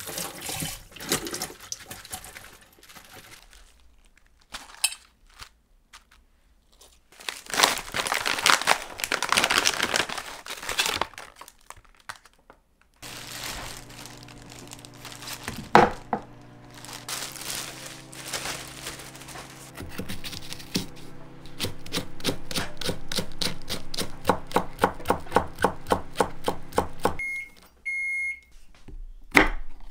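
Chef's knife chopping green onions on a wooden cutting board, a fast steady run of strokes in the second half, after some rustling and handling noise. Near the end come two short electronic beeps, then a single cut into a red chili.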